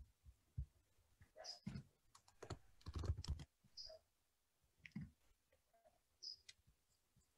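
Faint clicking and tapping of a computer keyboard and mouse over a call microphone, a quick run of clicks in the first half, then a few single clicks.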